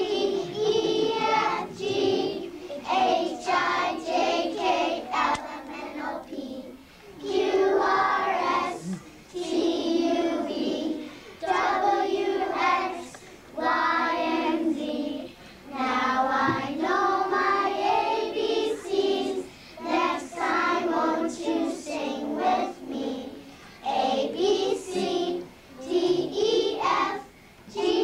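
A group of kindergarten children singing a song together in unison, in phrases of a second or two with short breaks between.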